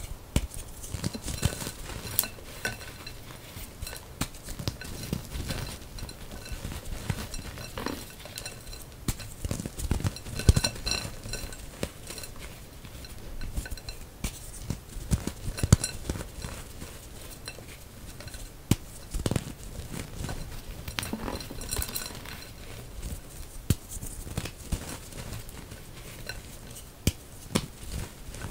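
Reformed gym chalk crumbled and crushed by hand into loose chalk powder: an irregular run of dry crunches and crackles.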